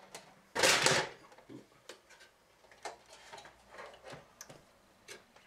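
Parts of a cheap PC case being handled: one loud rattling scrape of about half a second, about half a second in, then a string of light clicks and knocks.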